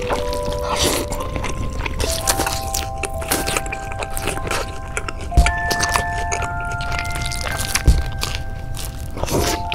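Mukbang ASMR eating sounds, a run of crackly bites and chewing noises, over soft background music of held notes, with two low thumps about five and a half and eight seconds in.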